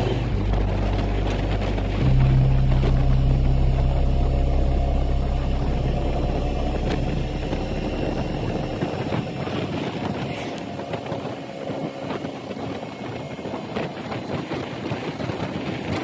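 Motorcycle engine running under way, over a steady rush of wind and tyre hiss on a wet road. The engine note rises about two seconds in and fades away after about eight seconds, leaving mostly wind and wet-road noise.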